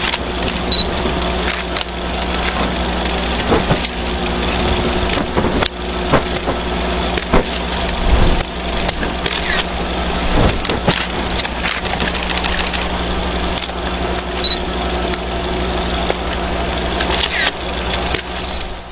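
Vintage film-projector sound effect: a steady mechanical running hum with scattered crackles and clicks throughout.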